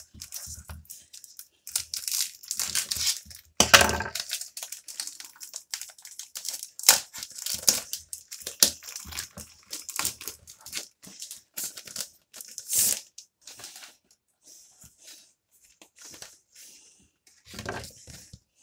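Parcel packaging being torn open and handled: irregular ripping, crinkling and rustling, busy for the first dozen seconds or so, then thinning to a few light rustles.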